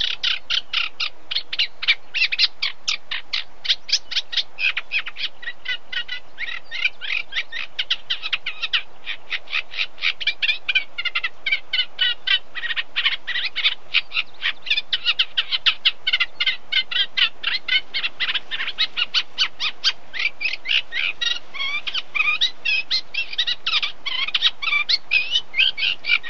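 Reed warbler singing: a long, continuous run of rapid, chattering repeated notes, with no real pause.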